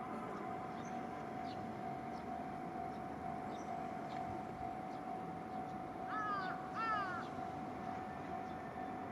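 A crow calling twice, two short hoarse caws about six and seven seconds in, over steady outdoor background noise with a faint steady tone.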